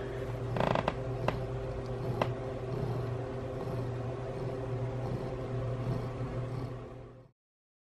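Domestic cat purring steadily, a low rumble that swells and eases about once a second, with a short rustle and a few light clicks in the first couple of seconds. It cuts off suddenly near the end.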